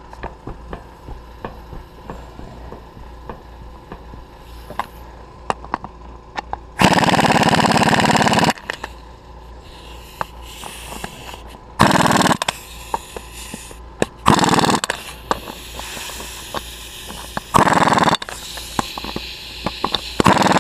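Pneumatic impact wrench firing in five bursts, a longer one of about a second and a half and four short ones, hammering bolts down until they contact the rim. Small clicks and ticks between the bursts.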